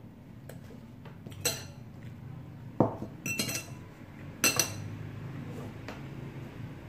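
Metal cutlery clinking against a glass plate and the tabletop as utensils are moved aside: a single clink, a duller knock, a quick run of clinks, then two loud ones.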